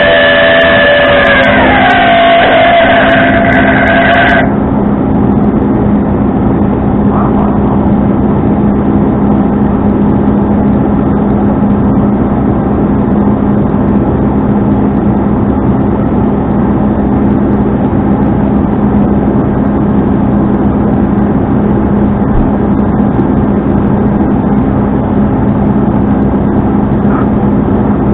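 Tow truck engine running steadily, a constant low drone. During the first four seconds a few held tones shift in pitch and then stop abruptly.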